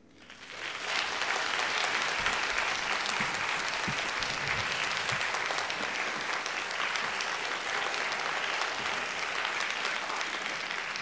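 Audience applauding, swelling up about half a second in and holding steady, easing off slightly near the end.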